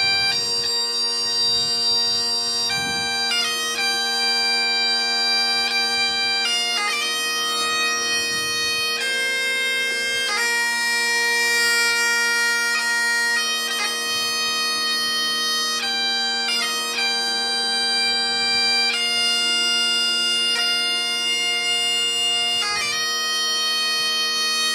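Bagpipe playing a slow tune over its steady drone, each melody note held for a second or more.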